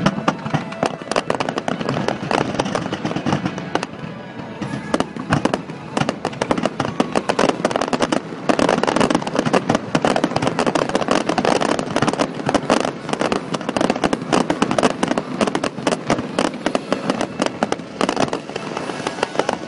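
Fireworks display: a continuous rapid crackle of many small bangs, growing denser and louder about eight seconds in.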